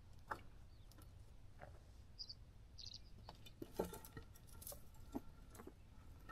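Near silence with faint, scattered small clicks and rustles, a slightly closer cluster about four seconds in.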